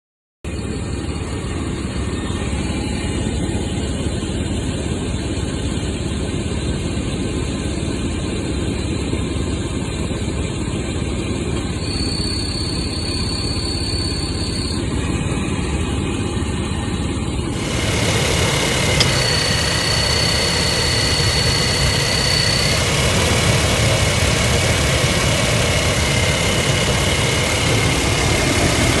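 Toyota Land Cruiser 120 engine idling with an extraneous cricket-like noise. Thin high-pitched tones stand out over the idle, most clearly in the second half.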